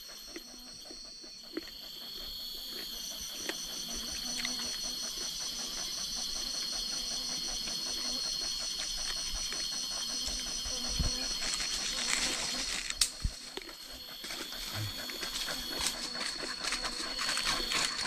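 Forest insects calling in several steady high-pitched buzzes, one of them pulsing fast and evenly; more voices join about three seconds in. Occasional soft snaps and rustles underneath.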